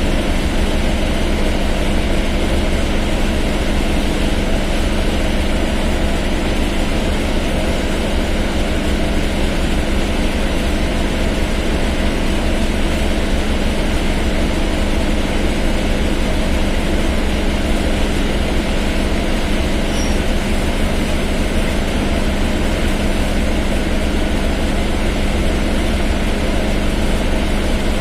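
Mercedes-Benz OF-1721 BlueTec 5 bus's diesel engine running steadily at an even, unchanging pitch.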